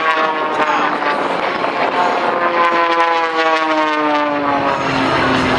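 Aerobatic piston-engine propeller airplanes, a Challenger III biplane and an Extra 300L, flying past. Their engine and propeller drone drops steadily in pitch as they go by.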